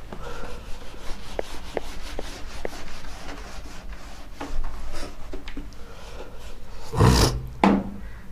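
Whiteboard eraser rubbed back and forth across a whiteboard, wiping off writing in a quick run of scrubbing strokes, with two louder strokes near the end.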